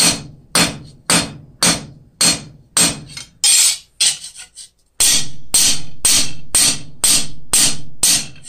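Hammer striking the edge of a cold steel cross blank on an anvil, texturing it: steady blows about two a second, each ringing briefly. About four seconds in the blows stop for a moment while the piece is turned, then start again.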